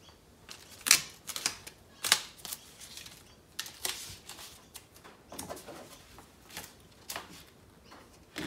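Masking tape being pulled off the roll and torn into strips: a run of irregular sharp rips and crackles, the loudest about a second in.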